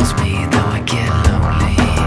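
Loud music with a steady drum beat over a sustained bass.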